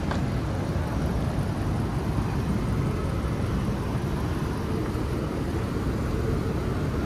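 Steady low rumble of city street background noise, with no distinct events standing out.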